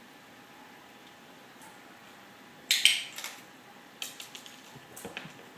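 Metal bells of a dog-training doorbell jingling: one loud jangle about three seconds in, then a few lighter jingles and a dull knock near the end.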